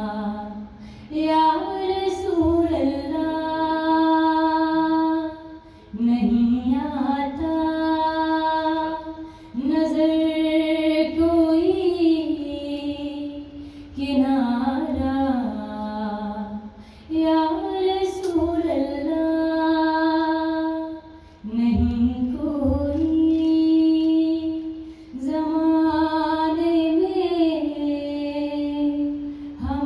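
A woman singing a naat unaccompanied into a microphone. She sings in long held, ornamented notes, in phrases of a few seconds with short breaks for breath.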